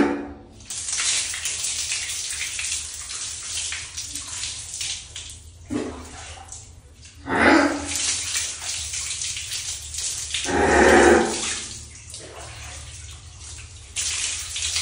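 Water poured from a plastic basin over a dog's back, splashing off its coat onto a tiled floor, in several pours with short pauses between them, and a few louder bursts, the loudest about ten seconds in.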